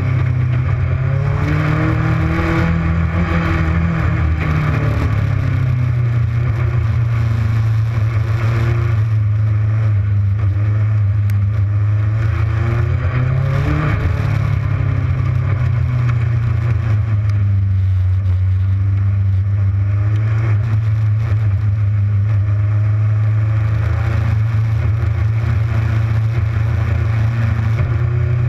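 Legends race car's Yamaha four-cylinder motorcycle engine running hard at race speed. Its pitch climbs and drops in long, slow waves as the throttle is worked lap by lap.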